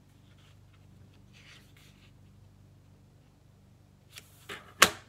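Paper trimmer's scoring blade drawn along cardstock with a faint scrape, then a few sharp clicks and taps near the end as the trimmer and card are handled, the loudest a single sharp click.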